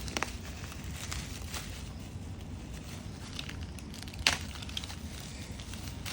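Packaging rustling and crinkling with scattered light knocks as items are handled and taken out of a box, with one sharper click a little over four seconds in.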